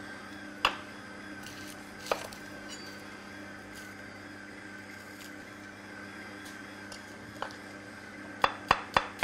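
Kitchen knife cutting onion on a cutting board: a few single knocks, then near the end a quick, even run of chops, about four a second. A stand mixer hums steadily underneath as it kneads dough.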